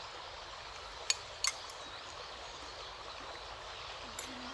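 Steady rushing background noise, like running water, with two sharp clicks about a second in and another near the end.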